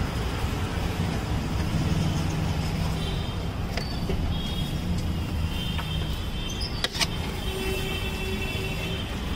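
Steady rumble of street traffic, with two sharp clicks about four and seven seconds in.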